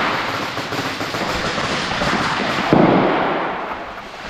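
Airsoft guns firing in a dense, rapid crackle of shots, with one louder bang about two and a half seconds in.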